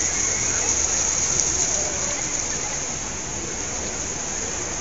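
Steady hiss of a fountain's splashing water, with faint voices under it.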